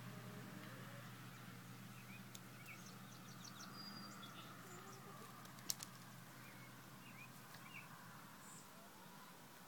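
Quiet outdoor garden ambience with faint, scattered songbird chirps and a steady low hum that fades near the end. Two sharp clicks come a little past halfway.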